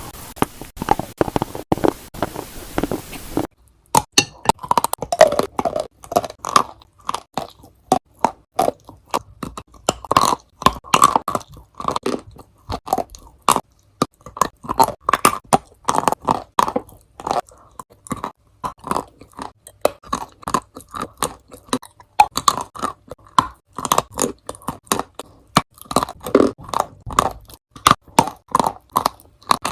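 Close-miked crunching and chewing of dry clay chunks mixed with paste: sharp, irregular crunches in quick succession, loud against a quiet background. The texture changes abruptly about three and a half seconds in.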